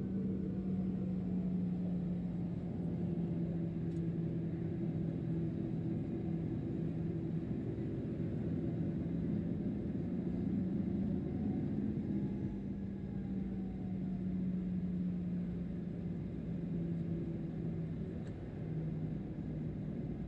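Steady cabin rumble inside a Boeing 737-800 airliner, with a constant low engine hum under it.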